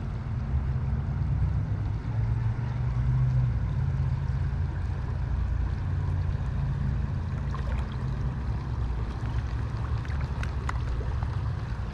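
Fast-flowing river water running as a steady low rumble, with a few faint clicks in the last few seconds.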